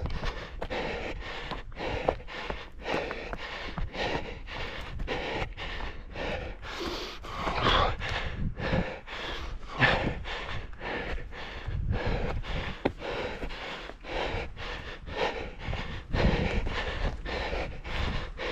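A runner's hard breathing and steady footfalls, about two to three steps a second, heard close from a head-mounted camera while running an orienteering course.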